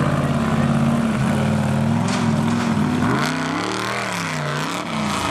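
Mud truck's big engine running hard at steady revs, then from about three seconds in the revs swoop up and down twice as the truck climbs and rears up over a dirt jump.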